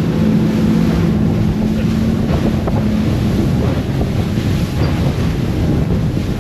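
Fishing boat running through rough seas: a steady engine hum that fades about halfway through, under heavy wind on the microphone and the rush and slap of waves against the hull.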